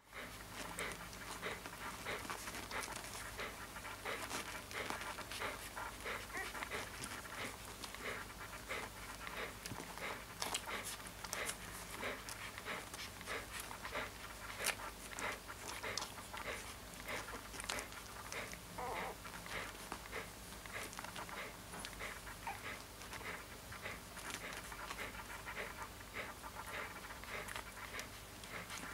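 Siberian husky puppy asleep, breathing fast in quick, irregular puffs like light panting.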